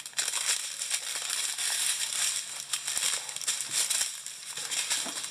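Small plastic zip-top bags of resin diamond painting drills crinkling as they are handled and shuffled, with a continual crackle and small ticks.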